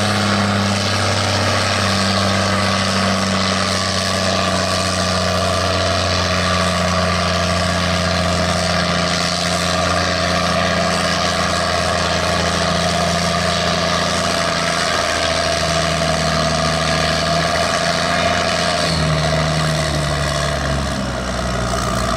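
Case IH 1455 XL tractor's six-cylinder turbo diesel running at full throttle while pulling a weight-transfer sled down the pulling track. The engine note holds steady, then falls in steps over the last several seconds as the load grows.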